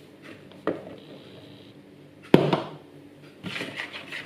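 One sharp knock about two seconds in, then a metal spoon stirring flour into a liquid dough mix in a plastic mixing bowl, with soft scraping and light taps.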